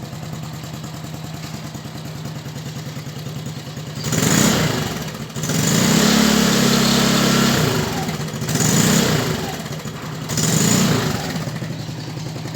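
Motorcycle idling through an aftermarket 'Trovão' exhaust with a butterfly valve, the valve set closed for the quiet mode. About four seconds in it is revved four times, a short blip, a longer rev held for about two seconds, then two more short blips, before it settles back to idle.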